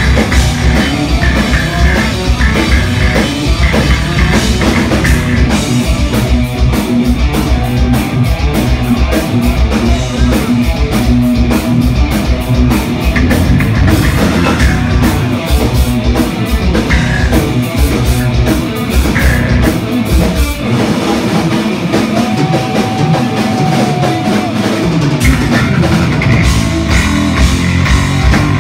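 Live heavy metal band: an electric lead guitar solo over drum kit and bass, played loud and continuous, with a long held guitar note a little over two-thirds of the way through.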